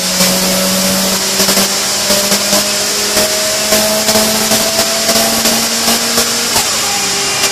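Mitsubishi Lancer Evo IX's turbocharged 4G63 four-cylinder engine running hard on a chassis dyno, its note rising slowly and steadily as it pulls up through the revs, with a loud whine and hiss and many sharp crackles throughout.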